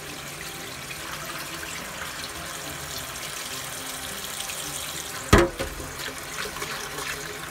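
Kitchen tap running steadily into a stainless steel bowl of salmon roe in the sink, the water splashing and overflowing as the roe is rinsed. A single sharp knock about five seconds in.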